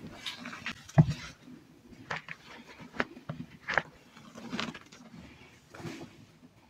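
Hands crushing and squeezing hydrophobic chalk lumps and loose powder in a bowl: irregular soft crunches and crumbling, the sharpest crunch about a second in.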